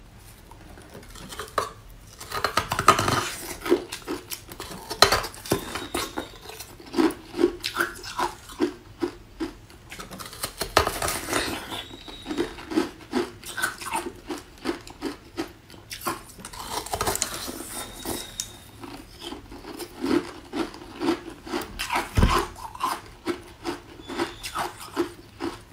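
Close-miked ASMR eating of a frozen red ice block: a few loud crunching bites among a steady run of sharp crunchy chewing clicks.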